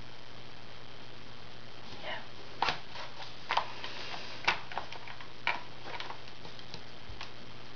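Small sharp plastic clicks and taps of Crayola Super Tips felt-tip markers being handled, picked up from and put back into the row of markers: about half a dozen clicks spread over a few seconds, the loudest about halfway through.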